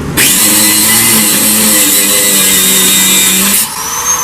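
Power grinder cutting through a steel wheel bolt to shorten it, loud and steady for about three and a half seconds, then lifted off and spinning down with a falling whine.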